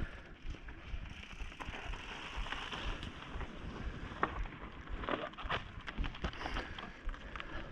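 Mountain bike rolling down a rocky dirt trail: tyres crunching over gravel and stones, with scattered small knocks and rattles from the bike.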